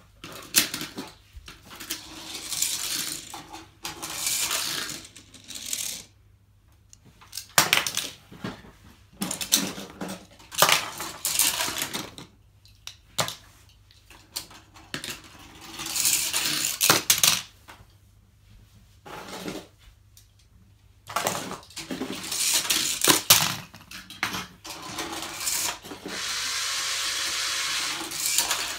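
Small toy cars rolling and rattling down a long segmented plastic track, one run after another. Each run is a clatter of many small clicks lasting one to three seconds, with short pauses between runs.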